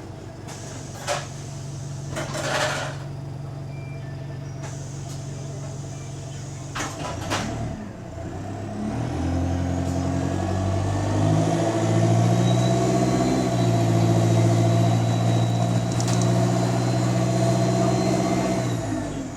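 Bus diesel engine idling, with a short air hiss about two and a half seconds in, then pulling away: the engine note climbs in steps as it accelerates and stays loud before easing off near the end. The bus has an exhaust leak, which adds to the engine sound.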